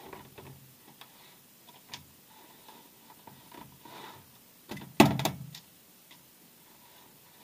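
Handling noise from a leather briefcase and a notebook: faint rustles and light taps, then a sharp knock about five seconds in as an object is set down on the workbench.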